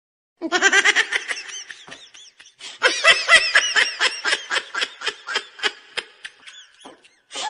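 Laughter: a long run of short, pitched "yaa"-like laughing bursts. It starts about half a second in, eases briefly near two seconds, picks up again and stops near seven seconds.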